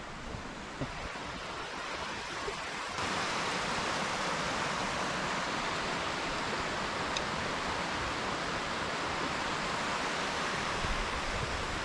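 Steady rushing of flowing water, which gets louder about three seconds in.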